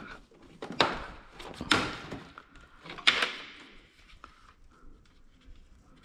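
Plastic front panel of a Frigidaire window air conditioner being pulled off and lifted away: several hollow plastic knocks and scrapes, the loudest about three seconds in.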